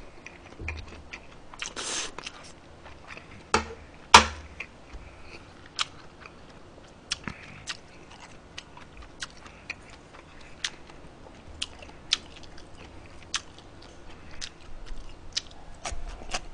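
Close-miked chewing of a mouthful of Korean-Chinese fried rice, with scattered sharp clicks throughout, the two loudest close together about four seconds in.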